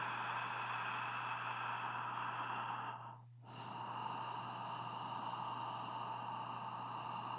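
Slow, breathy exhaling and inhaling close to the microphone, with a brief stop about three seconds in, over a faint steady electrical hum.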